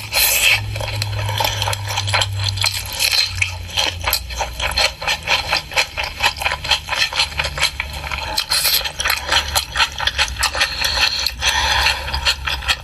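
Close-miked mukbang eating sounds: chewing and crunching of pork, heard as many short wet clicks with scrapes, over a low steady hum.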